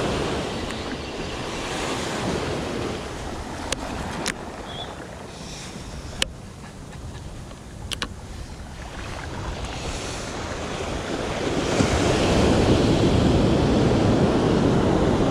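Surf washing up the beach with wind buffeting the microphone, quieter in the middle and swelling louder after about eleven seconds. A few sharp clicks stand out in the middle.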